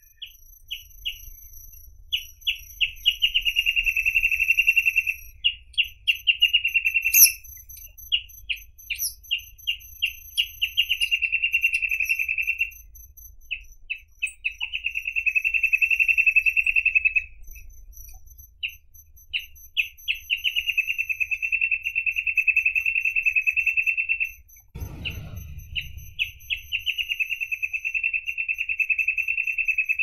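Reed parrotbill singing: runs of short, separate notes that speed up into long, fast trills lasting several seconds, repeated again and again.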